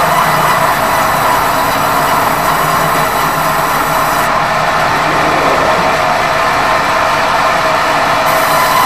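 Steady mechanical running noise with a constant hum, holding level throughout.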